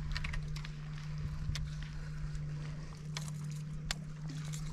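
Small fishing boat's motor humming steadily at low speed, with scattered light clicks and taps over the hum.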